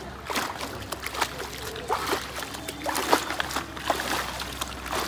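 Irregular splashing and sloshing as a fishing net bag is hauled and dunked in river water against a bamboo raft, with water streaming back out through the mesh.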